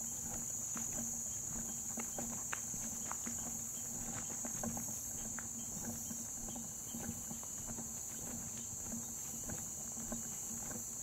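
Footsteps on a dirt woodland trail at a walking pace, over a steady high-pitched chorus of insects such as crickets.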